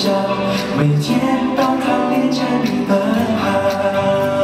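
A live pop song: voices singing a melody over a backing track, ending on a long held note about three seconds in.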